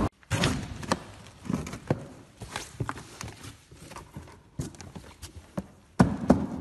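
Gloved hands handling a cardboard carton and its liner sheets while packing durians: irregular taps, knocks and rustles, with a louder cluster of knocks about six seconds in.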